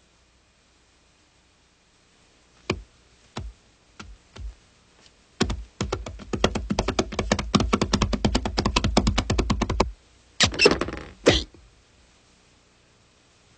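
Cartoon sound effects: a few separate knocks that give way to a fast run of sharp knocks, about ten a second, for some four seconds, then a short noisy clatter near the end.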